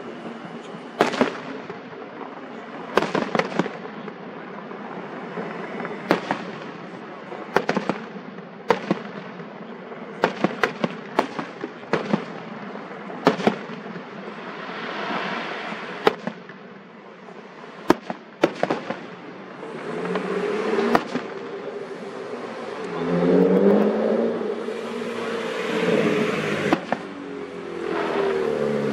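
Aerial fireworks going off at a distance: sharp bangs, singly and in quick clusters of two or three, over a continuous crackling hiss. In the last third a lower droning sound with shifting pitch rises and falls underneath.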